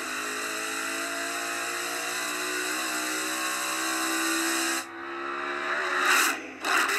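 Race car engine running, with pitch that rises slightly, under a loud steady hiss that cuts off abruptly about five seconds in. Near the end come two short, loud rushes of noise.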